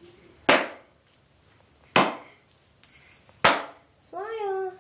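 Three sharp clacks, evenly spaced about a second and a half apart, each ringing briefly.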